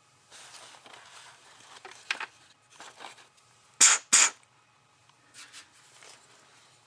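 Small metal hardware being handled and rummaged through: rustling, scattered light clicks, and two loud sharp clicks close together a little past the middle.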